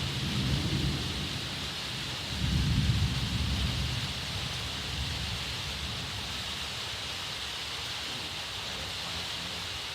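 Distant thunder rumbling low, swelling about two seconds in and dying away over the next two, over a steady hiss.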